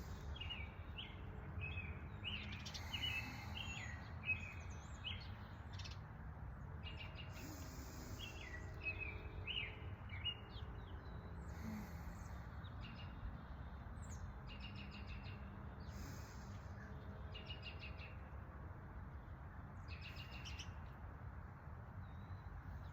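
Several songbirds chirping and calling, with clusters of quick chirps and short rapid trills, over a steady low background rumble.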